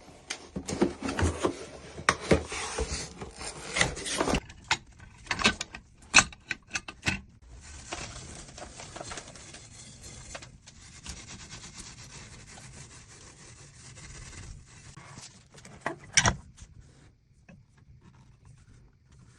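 Handling noise: a run of knocks, clicks and rubbing, then steady hiss, with one loud knock a little after the middle of the second half.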